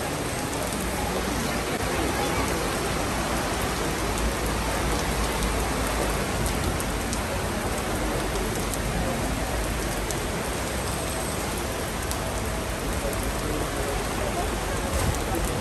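Heavy rain falling steadily, heard from under canvas café awnings.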